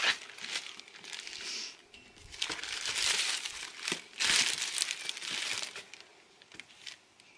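Clear plastic bag of tulip bulbs crinkling as it is handled and opened, in several bursts of rustling that die away near the end.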